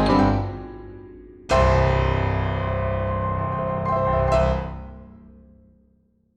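Background piano music: a chord struck at the start, then a fuller chord about a second and a half in that rings out and fades to silence near the end.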